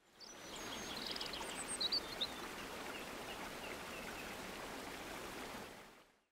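Small spring-fed woodland stream trickling steadily, with birds chirping over it: a quick trill about a second in and a few sharp calls around two seconds, the loudest moments. The sound fades in at the start and out near the end.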